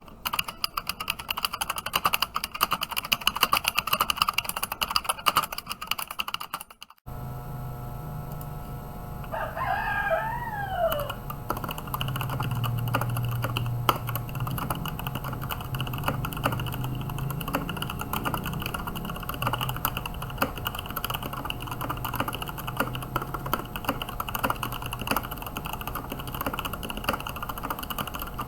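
Fast typing on a GK61 mechanical keyboard with stock Gateron Yellow linear switches: a dense run of key clicks. About seven seconds in, the sound changes abruptly, and the typing goes on over a low steady hum, with a rooster crowing once in the background a few seconds later.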